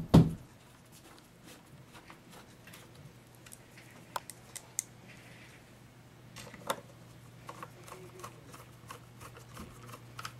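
Screwdriver driving screws into the cover of a Kirby upright vacuum: a loud knock at the start, then scattered light clicks and scraping, with a few sharper ticks about four to five seconds in and again near seven, over a steady low hum.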